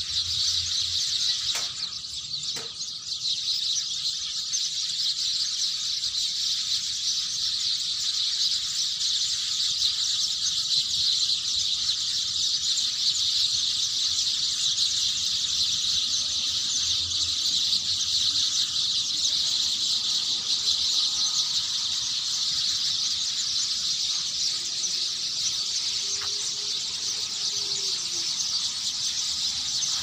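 A steady, shrill, high-pitched animal chorus from the tree canopy, dense and unbroken, with no separate calls standing out.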